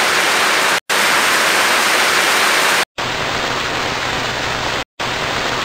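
Steady, loud static-like hiss, broken three times by sudden split-second cut-outs to silence; it runs a little quieter after the second cut-out.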